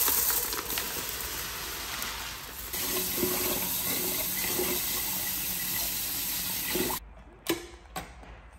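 Water running steadily from a kitchen tap, then shut off suddenly about seven seconds in, followed by a few light knocks.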